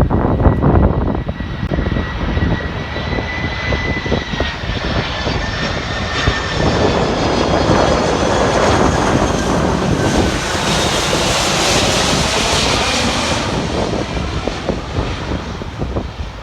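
Jet airliner passing low overhead on landing approach: a high engine whine that slowly falls in pitch, building into a broad roar that peaks a little past the middle and fades near the end. Wind buffets the microphone throughout.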